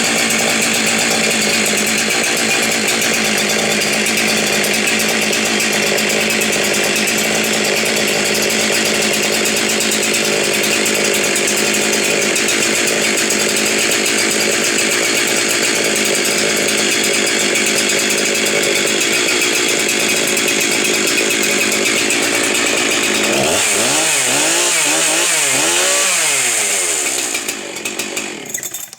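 Husqvarna 372 XPW 75 cc two-stroke chainsaw engine running steadily at high revs. About 23 seconds in, the engine speed swings up and down, then dies away near the end.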